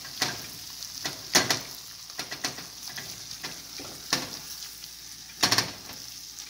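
Ground beef with bacon, onion and tomato sizzling as it cooks through in a stainless steel pot, stirred with a silicone spatula. The spatula scrapes and knocks against the pot now and then, loudest about a second and a half in and again near the end.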